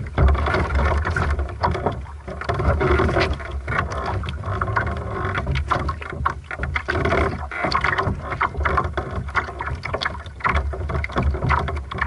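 Water lapping and slapping against the hull of a small sailing dinghy moving slowly, heard close up from a camera fixed to the hull: a busy run of short splashes and knocks over a low rumble.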